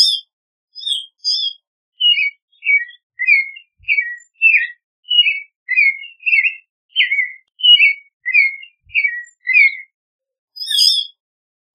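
Clay-colored thrush singing: a long run of short, slurred whistled notes, about two to three a second, many falling in pitch. Before and after the run come shorter, higher chirping notes in pairs.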